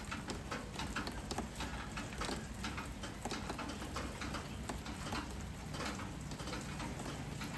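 Light rain falling, its drops pattering and ticking irregularly on surfaces close by.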